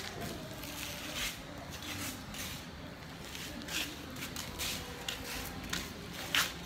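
Scattered short rustles and clicks from a handheld phone microphone being moved and handled, over a low background hum. The loudest click comes near the end.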